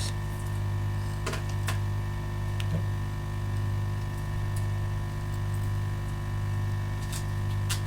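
Steady low hum from soldering bench equipment, with a few faint clicks of tools against the circuit board.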